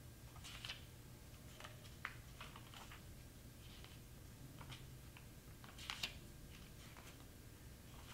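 Faint scattered clicks and short rustles as someone searches through notes and reference material, with a louder pair of clicks about six seconds in, over a low steady room hum.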